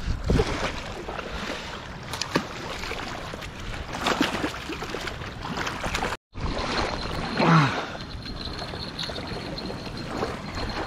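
Water splashing as a bream is slipped back into the river by hand at the water's edge, a few separate splashes over a steady rush of wind and small waves lapping the bank.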